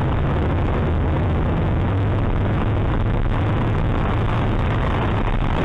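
Steady road and engine noise of a car driving through a road tunnel, heard from inside the car, with a low hum underneath.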